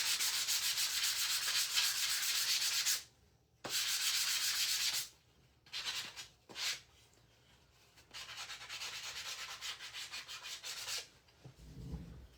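Sandpaper rubbing back and forth over the middle of a wooden cutting board, smoothing it for an image transfer. Long runs of quick scratchy strokes stop about three seconds in, resume briefly, come as a few short rubs, then return more lightly from about eight to eleven seconds.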